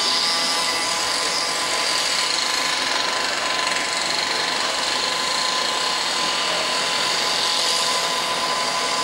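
Class 37 diesel locomotive running as it approaches slowly, its English Electric engine giving a steady high turbocharger whistle over the engine noise.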